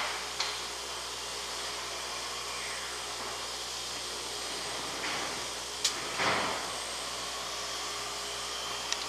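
Steady background hiss of room noise, with a few light clicks and a brief rustle about six seconds in as someone moves at the workbench.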